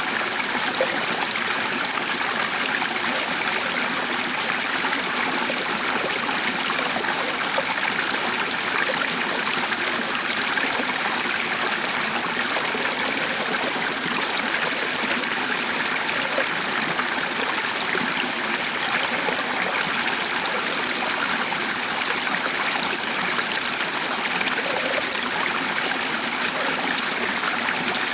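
Steady rush of flowing water, constant and unbroken.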